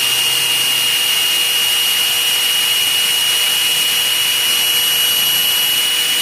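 Skill 6538 6 mm electric hand drill running steadily at one speed: a steady high whine over a motor hiss.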